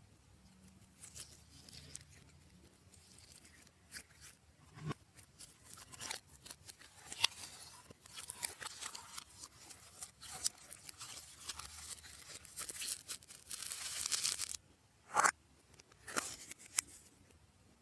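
Slime being worked by hand, giving irregular clicking and crackling pops that thicken into a dense run of crackles, then two loud pops near the end.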